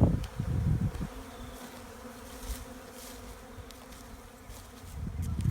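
Honeybees buzzing in flight, a steady hum, with a low rumble at the start and again near the end.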